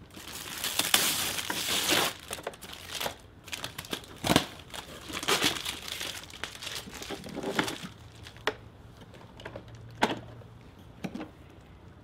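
Clear plastic wrapping film crinkling and tearing as it is pulled off by hand, in dense rustling bursts that thin out near the end. Two sharp knocks, one about four seconds in and one about ten seconds in.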